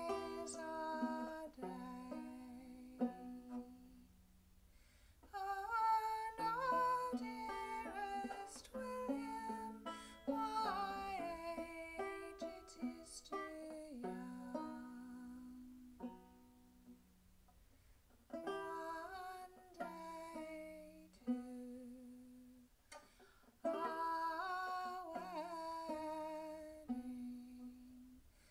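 A woman singing a folk song to her own plucked banjo accompaniment, the verse coming in phrases with short breaks between them.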